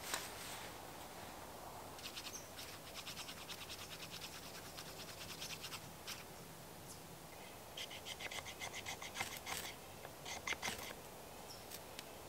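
Two bouts of quick, short scraping strokes, several a second, from hand work at a campfire pit to get a fire going again.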